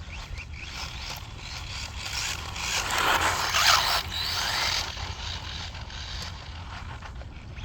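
A 1/16-scale brushless RC short course truck running on a 3S battery, its tyres scraping over the ground. The scraping is loudest for about two seconds in the middle, then drops back.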